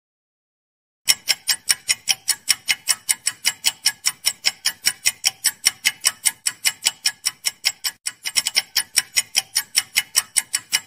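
Clock-ticking sound effect running under a quiz countdown timer: fast, even ticks, about five a second, starting about a second in and cutting off suddenly.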